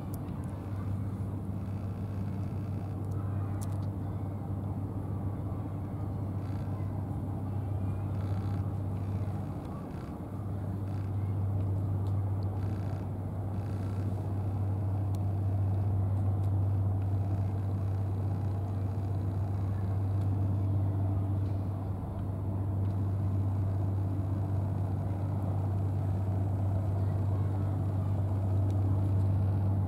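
Steady low mechanical hum with outdoor background noise, dipping briefly about ten seconds in.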